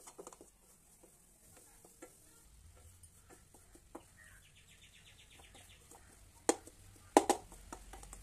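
Stirring crumbly flour-and-ghee dough in a stainless-steel kadai: scattered scrapes and clicks against the pan, with a few sharp knocks in the last two seconds. A short, high, rapid trill sounds in the background about four seconds in.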